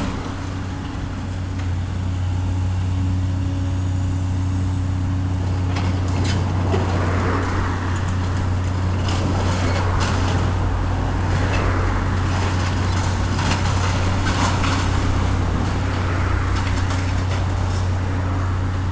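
Heavy demolition machine's engine running steadily with a constant low hum. From about six seconds in, intermittent crunching and knocks of debris being broken and moved.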